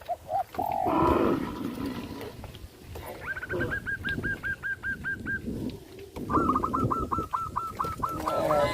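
Birds calling: two fast runs of short, repeated, hooked notes, about six a second, starting about 3 s and 6 s in. A louder, shorter sound comes about a second in.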